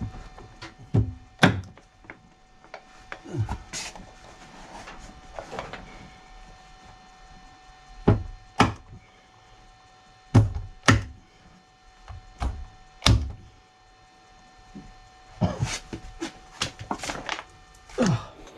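Irregular knocks and thuds against a wooden cupboard, with some rustling between them, as felt lining is pressed into place inside its top.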